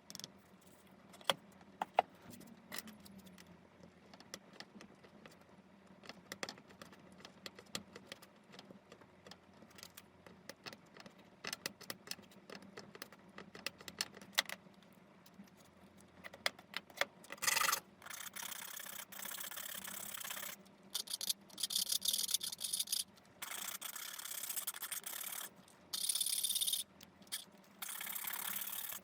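Scattered light clicks and taps of small hard objects being handled, then from about 17 seconds in a run of rasping bursts, each a second or two long, with short gaps between.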